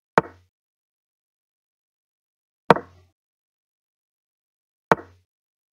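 Online chess move sound effect: three sharp, short wooden knocks about two and a half seconds apart as pieces are moved in a blitz game.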